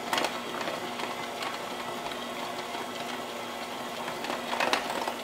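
Electric hand mixer running steadily on its lowest speed, its beaters mixing icing sugar into chocolate buttercream, with a few light clicks along the way.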